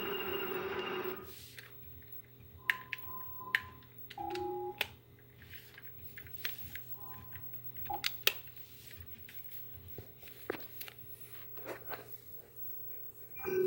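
A droning electronic hum cuts off about a second in, followed by scattered clicks and a few short electronic beeps at different pitches, like button tones.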